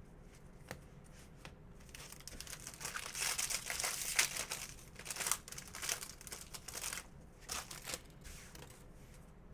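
Foil wrapper of a trading-card pack crinkling and tearing as it is handled and ripped open, loudest through the middle few seconds.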